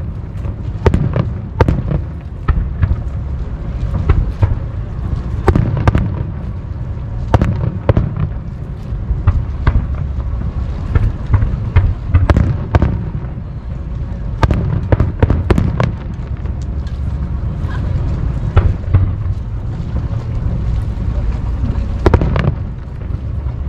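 Aerial fireworks bursting in quick, irregular succession: many sharp bangs, some close together, over a steady low rumble.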